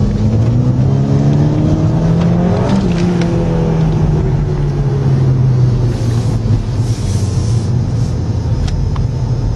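Volkswagen Scirocco 2.0 TSI turbocharged four-cylinder engine heard from inside the cabin, accelerating with the pitch rising for about three seconds. The note then changes abruptly and settles into a steadier drone that slowly falls, over steady road noise.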